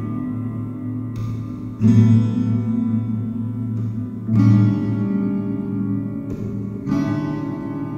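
Instrumental music with sustained chords, a new chord struck about every two and a half seconds.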